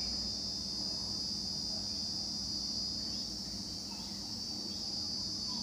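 A steady, unbroken high-pitched drone with a faint low hum beneath it; the hand-stitching itself makes no distinct sound.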